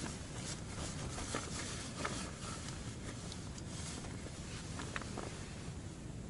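Wind buffeting an ice-fishing tent: a steady low rumble with scattered light ticks and taps on the fabric.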